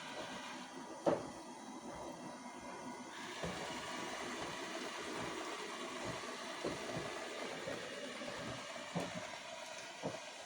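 Lefant M210 Pro robot vacuum running, a steady mechanical whir with scattered light knocks and one sharper knock about a second in.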